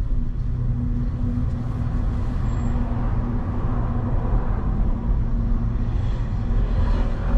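A motor vehicle's engine running with road noise while driving on city streets: a steady low hum that holds its pitch.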